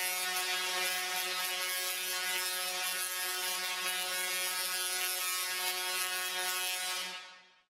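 Musical Tesla coils sounding a single held buzzing note through their spark discharges. The note fades out near the end.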